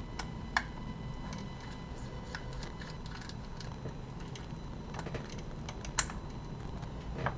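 Scattered light clicks and taps of small hand tools and parts on a cassette Walkman's tape mechanism during disassembly, with a sharper click about six seconds in.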